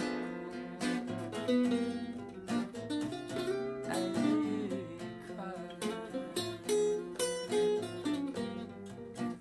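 Two acoustic guitars playing an instrumental passage together, with strummed chords and picked single notes.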